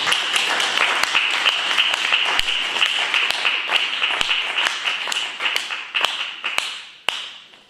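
Audience applauding, thinning out about six seconds in to a few last single claps, then stopping.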